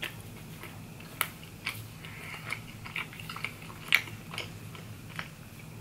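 Close-up chewing of a crispy Stuffed Cheez-It pizza piece: irregular crunches and wet mouth clicks, the loudest crunch about four seconds in.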